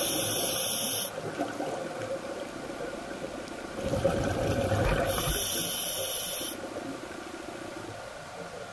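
Scuba diver breathing through a regulator underwater: a hissing breath with bubbling at the start and another about four seconds in.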